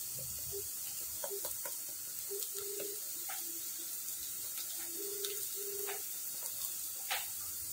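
Sliced onions frying in hot oil in an aluminium pot, a steady sizzle, with scattered light clicks and scrapes of a metal spoon stirring against the pot.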